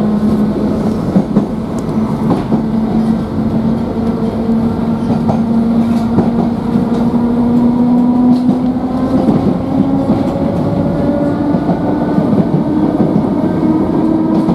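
Island Line Class 483 electric train, former London Underground 1938 tube stock, running, heard from inside the carriage: a steady rumble of wheels on rail with occasional clicks, and a motor whine that rises slowly in pitch as the train picks up speed.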